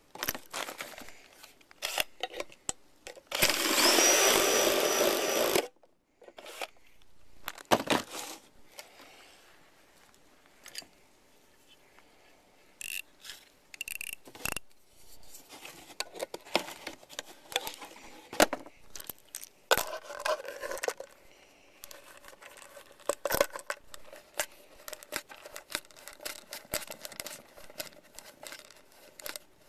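A power drill runs for about two seconds a few seconds in, its whine rising as it spins up, followed by scattered knocks and clicks of tools and parts being handled.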